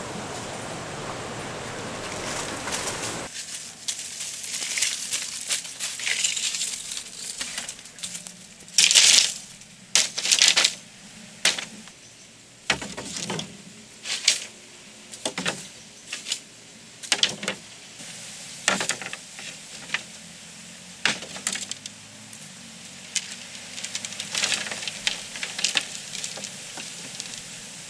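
A steady hiss for about the first three seconds, then an irregular run of sharp knocks, clicks and scraping rustles as bamboo poles are handled and laid on a bamboo roof frame; the loudest are two scraping bursts about nine and ten seconds in.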